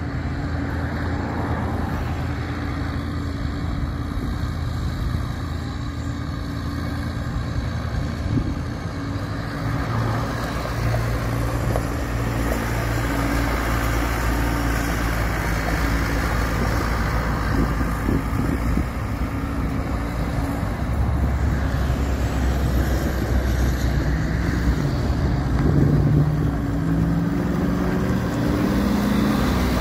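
Elgin Pelican SE street sweeper's engine running steadily as the sweeper drives across gravel. Its hum rises and falls in pitch several times in the last quarter.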